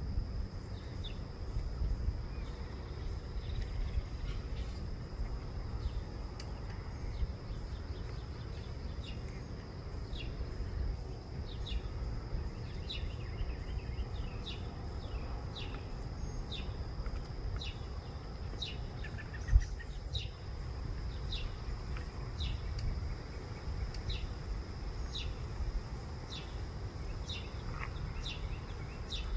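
Insects chirping: short high chirps about once a second over a steady high-pitched hum, with a low rumble underneath. A single thump comes about two-thirds of the way through.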